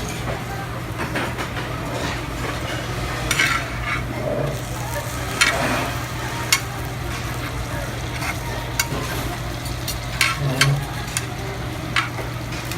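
Meat sizzling on a hot tabletop grill, over a steady hum, with a few sharp clicks scattered through.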